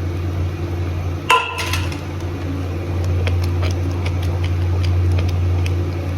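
A metal spoon clinks sharply once against a pot or bowl with a short ring, then taps and scrapes lightly while stirring, over a steady low hum.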